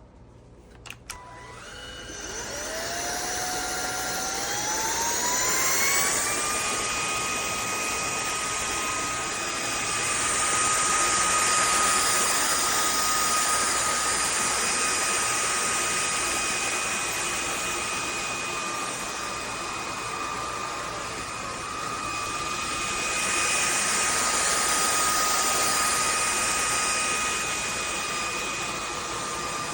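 Cordless stick vacuum with a brushless motor clicked on and spinning up: a whine rises in pitch over about four seconds, then holds as a steady high whine over the rush of air, swelling and easing in loudness a few times.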